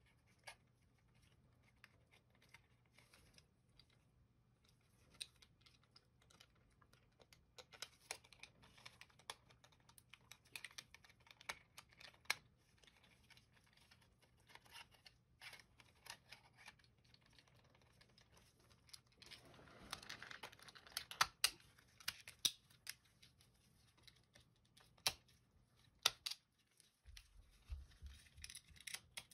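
Faint clicks, taps and rattles of a Microsoft IntelliMouse Optical's plastic frame and shell being handled and pressed together, busiest about twenty seconds in.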